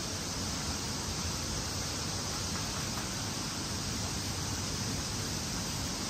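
Steady rushing noise spread evenly from low to high pitches, with no distinct events.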